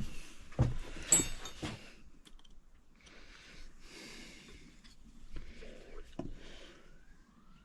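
Hammer blows on a punch against a piece of hacksaw-blade spring steel, punching a hole: four sharp metal strikes in quick succession, one ringing, then quieter handling and one more strike about six seconds in.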